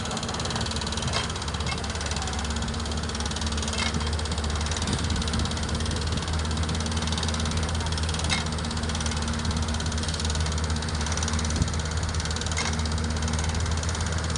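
Heavy diesel engine of quarry machinery running steadily, with a few sharp metallic clicks now and then.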